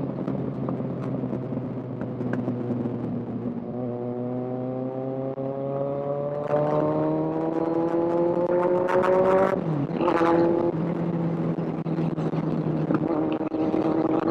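Kawasaki Z1000 inline-four engine under way. It runs steady, climbs in pitch for several seconds as the bike accelerates, drops sharply at an upshift about ten seconds in, then settles and begins to climb again near the end.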